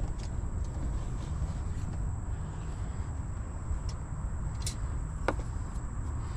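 Hands fitting an LED headlight bulb and its wiring into a truck's headlight housing: a few light clicks and taps in the second half, over a steady low rumble.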